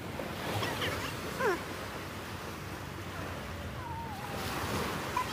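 Small sea waves washing onto the sand, a steady rushing hiss, with a few short high-pitched calls sliding down in pitch in the first second or two and another wavering one about four seconds in.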